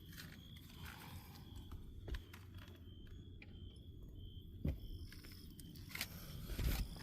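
Several separate clicks from the Mando IEB (integrated electronic brake) module behind the dashboard under the steering wheel of a 2025 Hyundai Grandeur GN7 hybrid, operating as the brake pedal is pressed with the car switched off. The sharpest click falls a little past the middle, and a dull thump comes near the end. The owner takes the clicking for a defect; Hyundai calls it normal operating noise.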